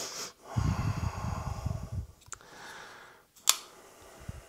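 A long breath out close to a worn microphone, then two sharp clicks, the second and louder one about three and a half seconds in, from a folding knife being worked while its blade is checked for play.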